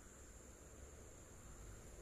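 Near silence: a faint steady hiss with a little low rumble.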